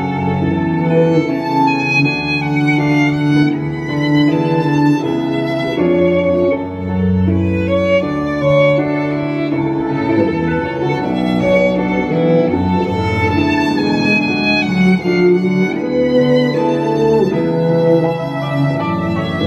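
Violin and double bass playing together, both bowed: the violin carries the melody over long, sustained bass notes that change about every second or two.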